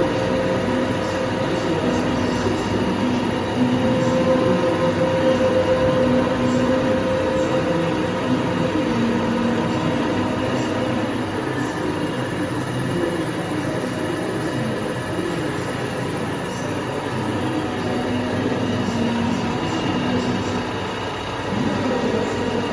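CNC milling machining center boring holes in metal. The spindle and cutting make a steady, loud machine noise with several fixed whining tones and a wavering lower tone from the cut.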